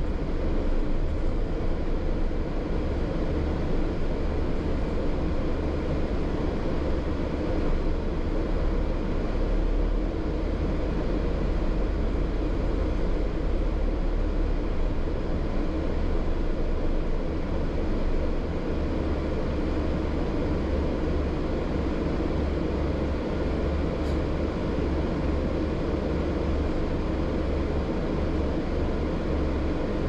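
Interior noise of a double-decker bus in motion, heard from the upper deck: a steady low engine drone with road and rumble noise, unbroken throughout.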